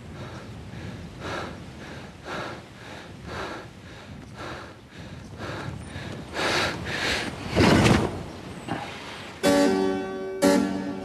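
Soft rhythmic swells about once a second, then a loud rush about eight seconds in, followed by piano-like keyboard music that starts about a second and a half later.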